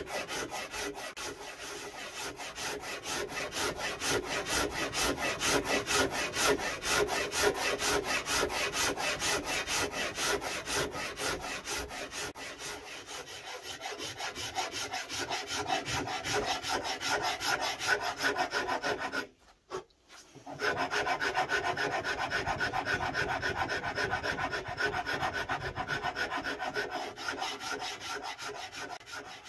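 A coarse mesh rasp scraping wood in rapid back-and-forth strokes, carving the arm and belly contour of a guitar body. The rasping stops briefly for about a second roughly two-thirds of the way through, then resumes.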